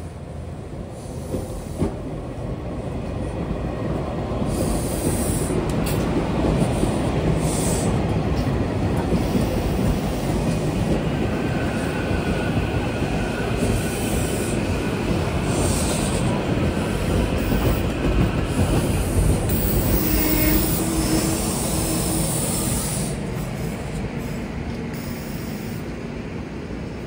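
SEPTA Silverliner V electric multiple-unit commuter train passing close by, its wheels rumbling over the rails with a brief wheel squeal partway through. The sound builds over the first few seconds and fades as the last car goes by near the end.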